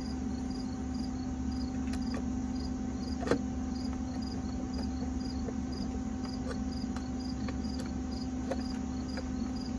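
Crickets chirping in a steady pulsing rhythm over a constant low hum, with a few scattered metal clinks of a hand wrench on an aluminium cylinder head, the loudest about three seconds in.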